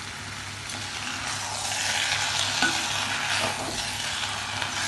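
Pieces of cooked beef, chickpeas and potato sizzling in a spiced pan as they are stirred with a spoon. The sizzling hiss grows louder about a second and a half in.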